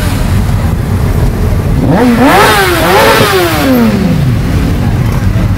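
A motorcycle engine revved twice in quick succession about two seconds in, its pitch then falling away as the throttle closes. Under it is the steady low rumble of idling motorcycles.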